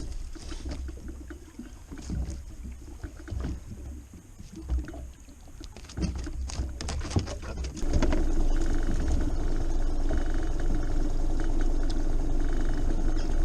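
Wind buffeting and small knocks aboard a small fishing boat, then about eight seconds in a motor starts up suddenly and runs steadily, much louder, with an even mechanical hum.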